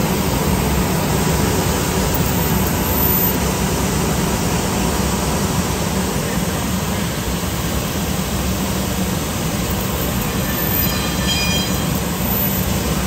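CNC laser cutting machine cutting steel plate: a steady, loud rushing noise with a low hum underneath.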